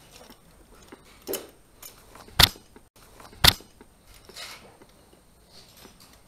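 Rope-access gear on a bosun's chair clinking as the technician moves on the rope: two sharp metallic clacks about a second apart, a softer knock before them and a rustle after.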